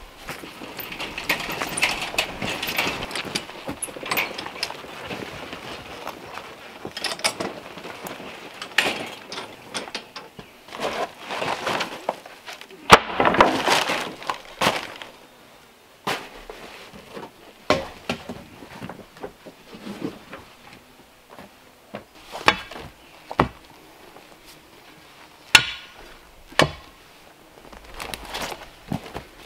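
Hand-tool work on stone and concrete: a rake scraping and spreading wet concrete in a wooden form, a loud knock about halfway through, then sharp metallic clinks and knocks of a steel pry bar levering rocks.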